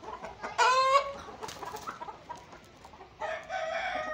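Barred Plymouth Rock chickens: a loud short call about half a second in over soft scattered clucking, then near the end a rooster starts a long crow.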